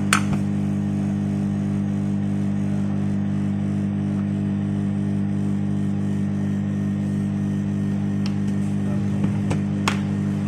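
Hot-air heat gun running with a steady motor hum, with a sharp click just after the start and another near the end.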